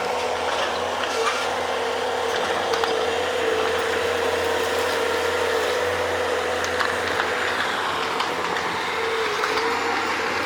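Bobcat skid-steer loader running steadily while digging, a continuous mechanical drone with a steady high whine that dips briefly a few times.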